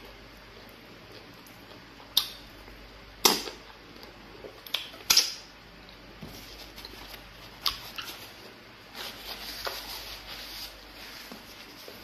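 Close-up eating sounds of fufu and egusi soup eaten by hand: wet mouth smacks and chewing, with a few sharp smacks about two, three and five seconds in and softer, steadier chewing near the end.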